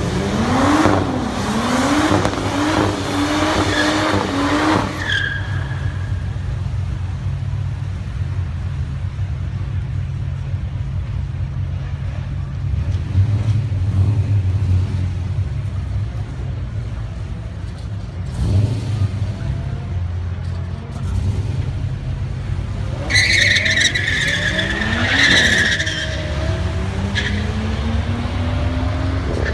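Drag-strip burnout: the FPV F6's turbocharged straight-six revs up and down with the tyres skidding, then settles to a steady idle rumble. About 23 seconds in, a second burnout brings a high tyre squeal over climbing revs, from the BMW M5's V10.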